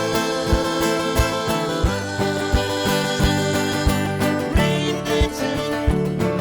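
Acoustic guitar music with a steady beat: strummed and plucked guitars over a regular low thump about every two-thirds of a second.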